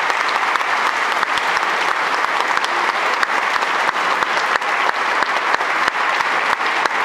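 A small crowd clapping, a steady dense applause that echoes in a large hard-floored hall.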